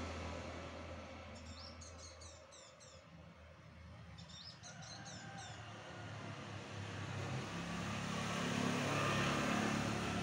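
Road traffic: a motor vehicle's engine fades away, and another approaches, growing louder toward the end. In the quiet stretch between them, a small bird gives two quick runs of high chirps.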